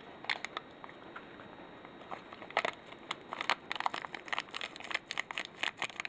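Shiny ramen seasoning packet crinkling as it is shaken and squeezed to sprinkle the powder over a dry noodle block: a run of small crackles, sparse at first and much busier from about halfway on.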